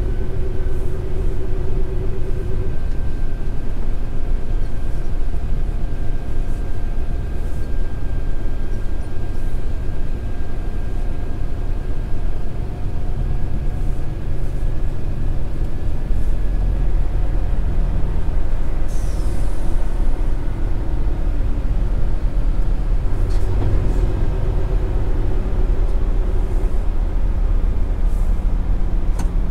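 Scania R410 truck's 13-litre six-cylinder diesel running under way, with a steady low drone of engine and road noise. A brief hiss comes about two-thirds of the way in.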